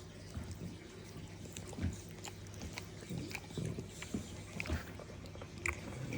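Sleeping English bulldog breathing between snores: a run of short, soft, low breath sounds with scattered small clicks.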